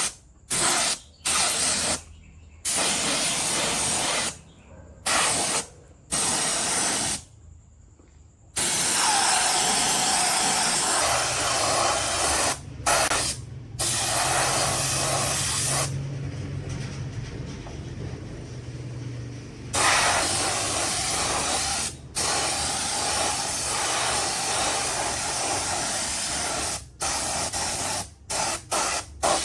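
Compressed-air spray hissing in repeated bursts, cut off sharply between pulls of the trigger, with a run of quick short bursts near the end. A low steady hum runs under it for a while in the middle.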